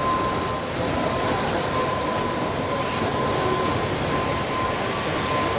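Steady machinery noise of a robotic car-body assembly line, with a steady whine held through it.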